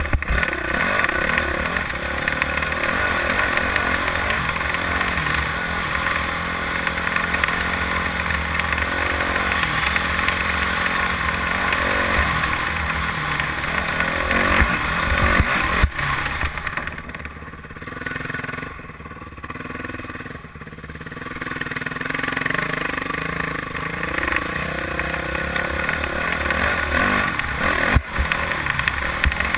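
Honda dirt bike engine running while riding along a dirt trail, with a steady rush of wind over the camera. The engine eases off and quietens for a few seconds a little past halfway, then picks up again; a sharp knock comes about halfway through and another near the end.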